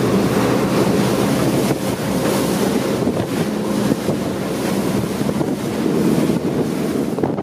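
Wind buffeting the microphone over the rush of spray and wake along the hull of a motorboat running at speed, with the steady drone of boat engines underneath.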